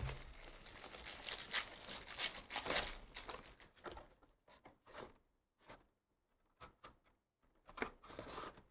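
Foil trading-card pack wrappers being torn open and crinkled, a dense crackle for the first four seconds or so, then only scattered brief rustles and clicks.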